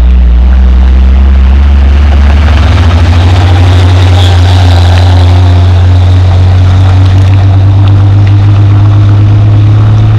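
Heavy diesel coal dump truck engine running hard as the truck labours past on a muddy haul road, its low note held steady with a slight rise in pitch.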